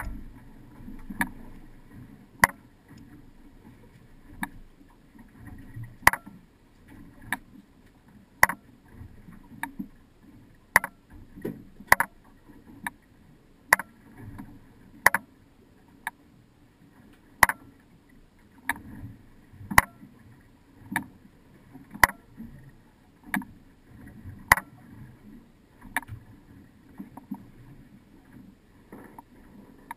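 Water washing against a drifting fishing boat's hull, with a sharp click or knock about every second and a bit, steady the whole time.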